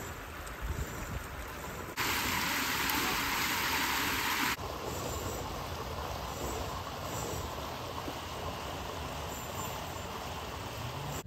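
Water rushing down a narrow concrete roadside channel as a steady noisy rush. It gets much louder for about two and a half seconds, starting about two seconds in.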